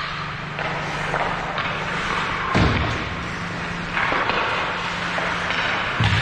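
Ice hockey play on a rink: skate blades scraping the ice over a steady low hum, with a loud thud a little under three seconds in and another near the end.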